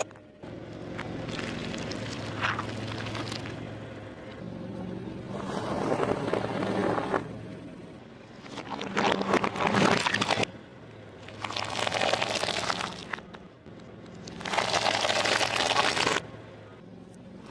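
A car tyre rolling over and crushing things one after another: a porcelain lidded tea cup cracking apart, a pile of jam-filled cookies crunching, and peanuts in their shells crackling. There are about five bouts of crunching, with the car's engine idling as a low hum in the gaps.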